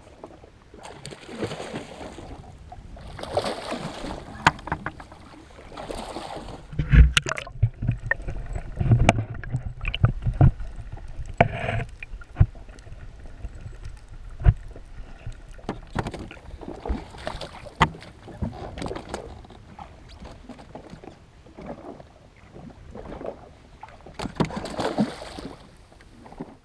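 Sea water splashing and sloshing against the side of a jet ski in washes that come and go, with dull knocks and thumps in the middle. Near the end a louder splash comes as the hooked yellowtail kingfish thrashes at the surface beside the ski.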